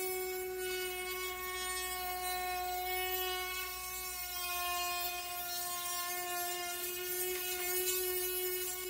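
Ryobi 4V cordless high-speed rotary tool running at high speed with a grinding head on, smoothing a jagged edge. The steady whine holds its pitch under the work and doesn't bog down.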